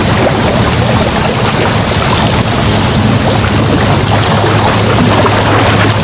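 Ocean waves and surf as a loud, continuous rush with no separate breakers standing out, over a steady low hum.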